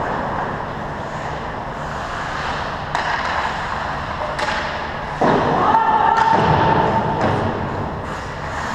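Ice hockey play in a rink: a steady wash of rink noise with sharp knocks of sticks and pucks, and a louder sound with a held tone lasting about a second and a half, a little past halfway.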